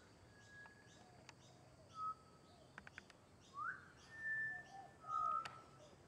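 Pied butcherbird singing: separate clear whistled notes, some held steady, one swooping upward and a few lower gliding ones, loudest in the second half. Behind them a faint high chirp repeats about twice a second.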